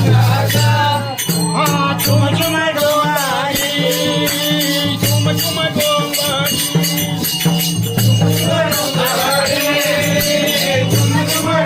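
A man singing a melodic song to music, over a steady low drone and a steady beat of shaken or struck percussion; the singer is an 80-year-old whose voice is still strong.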